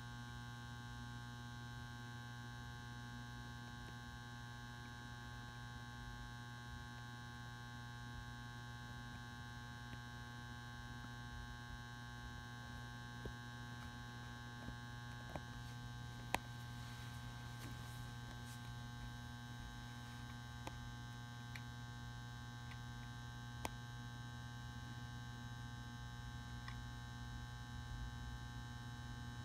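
Magnetic metal halide ballast humming steadily while it runs a 400 W metal halide lamp through its warm-up. A few light clicks come through in the middle of the hum.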